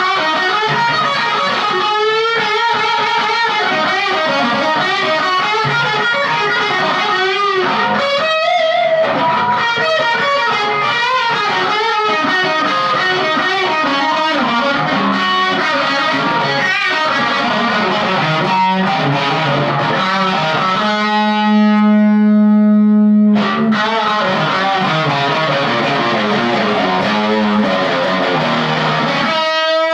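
Gibson Les Paul Studio electric guitar played through a Marshall Jackhammer JH1 distortion pedal into a Marshall MG15CD amp on its clean channel. It plays distorted lead lines with string bends and vibrato, and holds one long note for about two seconds around two-thirds of the way through.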